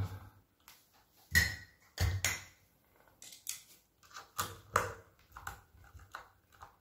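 Scattered clicks and knocks of hands handling a PCP air rifle's stock and small parts during reassembly, the sharpest knocks about one and a half and two seconds in.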